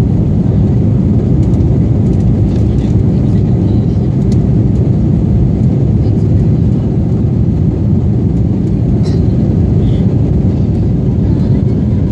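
Jet airliner cabin noise while climbing just after takeoff: a steady, loud roar of the engines and rushing air, heaviest in the low pitches, with a few faint clicks.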